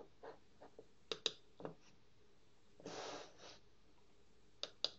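Computer mouse clicks as Photoshop's menus are worked: two quick clicks about a second in and two more near the end, with a short breath in the middle.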